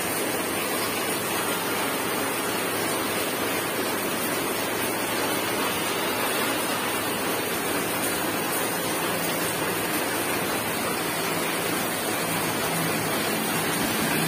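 A steady, even rushing hiss with no distinct events, like running water or heavy background noise.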